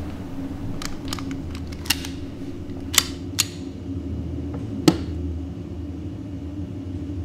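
Sharp, short clicks, about six of them scattered over the first five seconds, the loudest near five seconds in, over a low steady hum.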